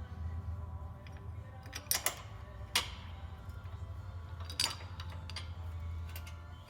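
A few sharp metallic clinks, the loudest about three seconds in, over low background music.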